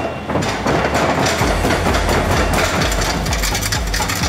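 Kobelco mini excavator's diesel engine running steadily, with a few short knocks from the machine.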